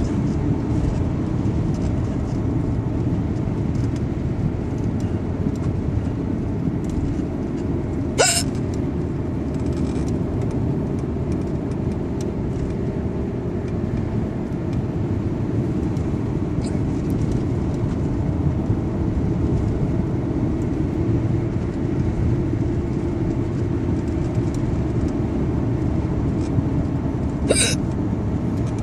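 A person hiccuping twice, each a short, sharp hic, the two about nineteen seconds apart, over a steady low rumble.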